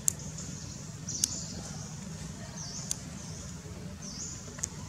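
Outdoor background noise: a steady high-pitched drone that dips briefly about every one and a half seconds, four sharp clicks and a low rumble, with no monkey calls.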